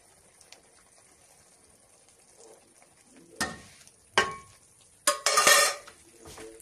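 Syrup poured over a tray of cut baklava, sizzling and crackling in short bursts. There are two brief bursts about three and a half and four seconds in, then a louder one lasting about a second near the end.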